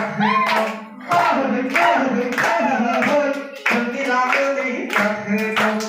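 Singing with a group clapping along in time, about two sharp claps a second, over a steady low drone.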